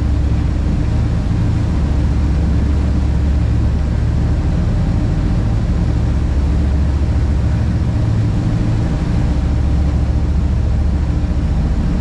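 Fishing boat's engines running steadily at cruising speed, a loud, even low drone, mixed with the rushing of the wake.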